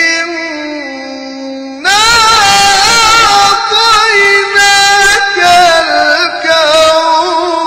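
A man reciting the Quran in the melodic, chanted tajweed style, drawing out long, ornamented notes. One phrase fades away, and a new, louder phrase begins about two seconds in.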